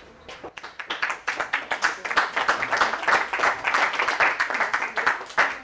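A small audience applauding, building up about half a second in and fading near the end.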